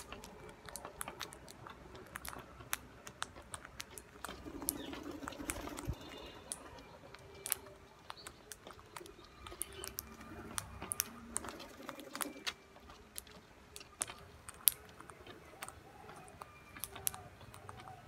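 Rose-ringed parakeets pecking and husking seed on a concrete slab: a steady scatter of sharp, irregular beak clicks and taps.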